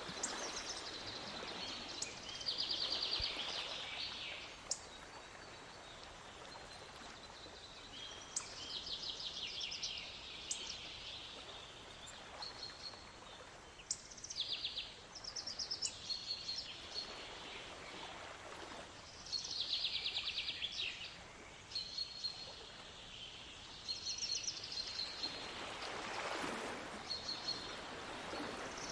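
Songbirds singing repeated phrases of fast, high trills and short whistles. Under them, waves wash in and out, swelling about every eight or nine seconds.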